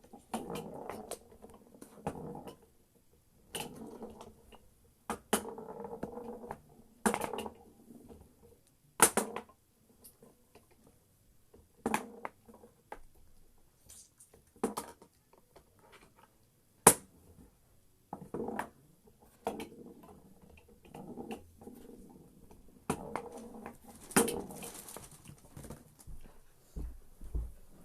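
Play on a mini foosball table: sharp clacks of the ball being struck by the rod figures and knocking against the table, at irregular intervals, between stretches of rattling as the rods are slid and spun.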